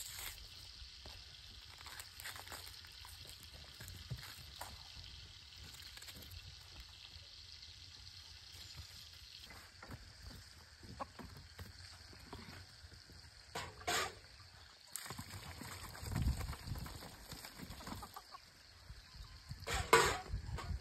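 Small knife peeling and cutting onions by hand, with scattered small clicks and scrapes. Two louder, brief knocks about 14 and 20 seconds in, the second the loudest.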